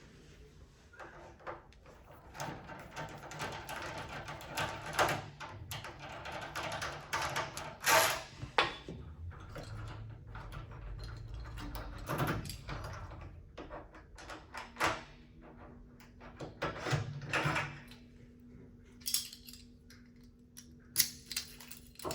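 Metal clicks, knocks and scrapes of a lock being worked on by hand: keys and tools rattling as a faulty euro cylinder, whose key spins without catching the cam, is taken out of a door lock.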